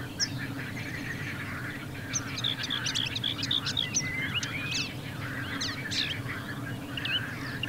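Several small songbirds chirping and singing at once in quick overlapping notes, with a steady low rumble underneath.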